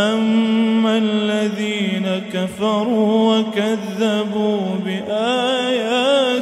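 A man's voice reciting the Quran in melodic tajweed style, drawing out long held notes that waver and turn in pitch, with brief breaks about two and a half and five seconds in.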